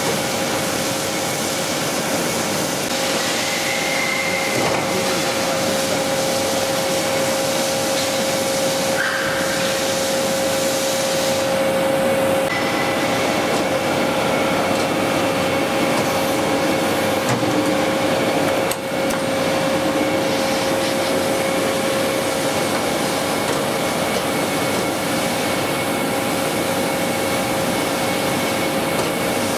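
TOS WFQ 80 NC A horizontal boring machine running: a steady whirring hum with a constant whine. Its loudness dips briefly once, with a click, about two-thirds of the way through.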